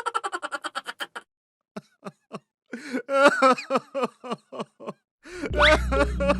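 Cartoon-style high-pitched voice sound effects: a quick run of chattering pulses, a few short blips, then squeaky babbling. Music with a low steady drone comes in about five seconds in.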